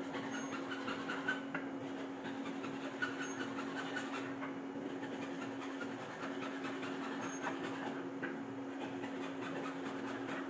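A steady low hum runs throughout, with faint rubbing and small clicks of hands fitting parts of an eye wash and shower floor drain.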